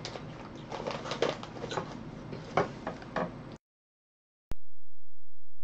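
Plastic snack bag of jackfruit chips and a paper booklet being handled, crinkling and rustling. It cuts off abruptly about three and a half seconds in; after a second of dead silence a click starts a loud steady low hum.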